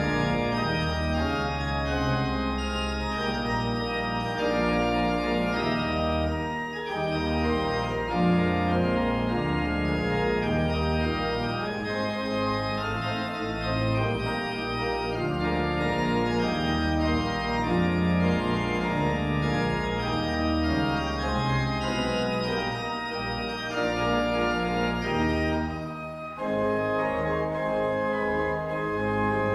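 Church organ playing the postlude: full sustained chords over a moving bass line, with a brief break about 26 seconds in before the next phrase begins.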